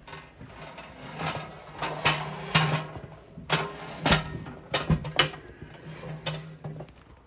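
A small electric motor running with a steady hum and high whine that stops near the end, over repeated knocks, clicks and scrapes of handling against hard surfaces.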